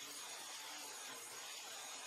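Angle grinder running with a steady high-pitched whine, its abrasive disc grinding against a segmented wood blank spinning on a lathe.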